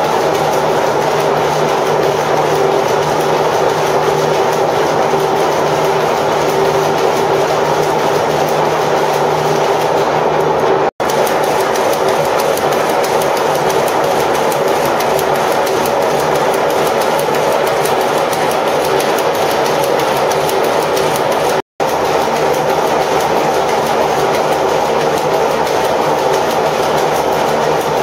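A shed full of belt-driven power looms weaving at once, a loud, dense, continuous clatter. Two split-second gaps, about 11 s in and near 22 s, cut it off briefly.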